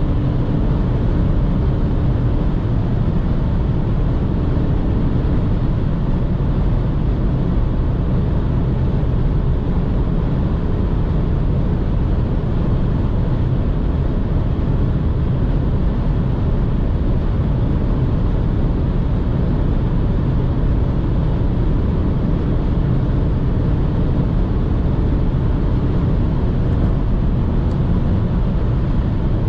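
Cabin noise of a 2006 BMW 118i at a steady cruise of about 200 km/h. Its 2.0-litre four-cylinder petrol engine runs at high revs under wind and tyre rush.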